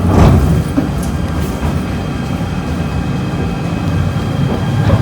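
JR 253 series electric train running, heard from inside the car: a steady low rumble with a short knock just after the start.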